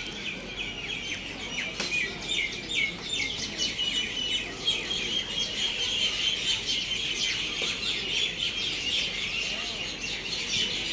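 Many small birds chirping, short rapid calls overlapping without a break.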